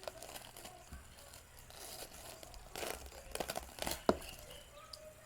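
Plastic wrapper of a fruit roll snack crinkling and tearing as it is handled, in irregular crackles that are loudest about three to four seconds in.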